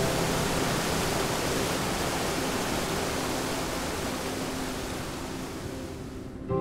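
Fast mountain river rushing and splashing over boulders, a steady hiss of white water that eases a little near the end.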